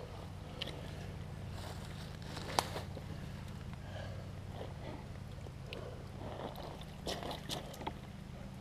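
Footsteps and rustling through wet leaf litter and undergrowth, with scattered small snaps and one sharp click about two and a half seconds in, over a steady low rumble.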